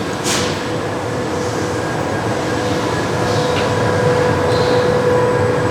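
Steady mechanical hum with a constant whining tone, growing slightly louder, and a few faint light clicks.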